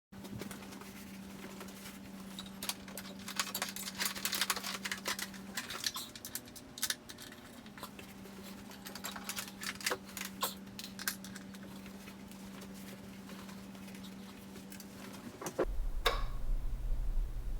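Handling noise from unpacking floor-standing speakers: irregular rustling and light clicks of packaging over a steady faint hum. Near the end, a louder low, steady sound sets in.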